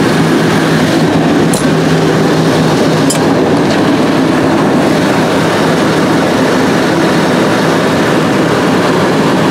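An engine running steadily close by: a loud, even mechanical rush with a low hum that fades after about four seconds. Two light clicks come a second and a half apart.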